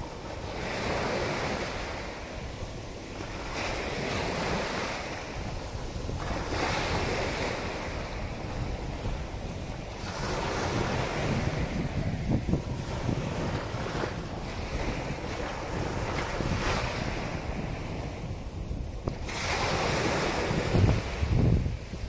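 Ocean surf breaking and washing up the sand at the water's edge, in surges that swell and fade every few seconds. Wind buffets the microphone, strongest near the end.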